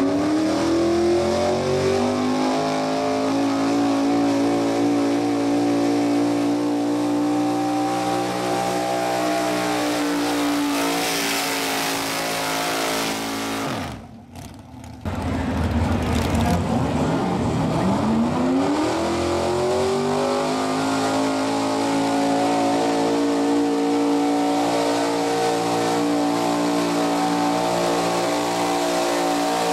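Modified gas pulling truck's engine revving hard under load as it pulls a sled. The pitch climbs at the start and then holds high and steady. About halfway through the sound drops away briefly, then the engine climbs back up to high revs and runs flat out again.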